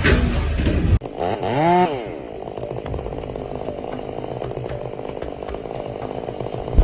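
A louder, noisy sound cuts off about a second in. Then a chainsaw engine revs up and back down once and keeps running at a steady speed.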